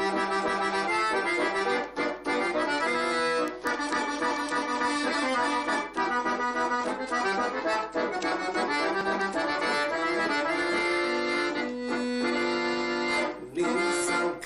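Piano accordion playing a folk tune without singing: a moving melody over sustained chords, with a few short breaks between phrases.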